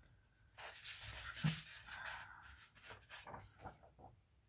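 Sheets of paper rustling and sliding against each other as they are handled, starting about half a second in and dying away near the end.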